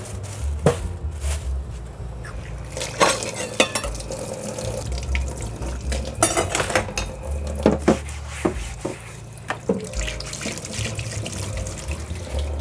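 Kitchen tap running into a stainless steel sink as things are rinsed, with repeated knocks and clatter of items handled in the sink.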